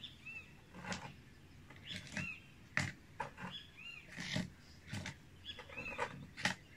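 Small stones clicking and knocking as they are dropped into the bottom of a plastic plant pot and picked up off a wooden table, about a dozen separate knocks. Short, high, arching animal calls repeat several times behind them.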